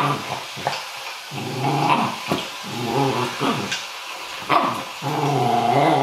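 A dog growling in several drawn-out stretches with a wavering pitch, with short sharp sounds in between.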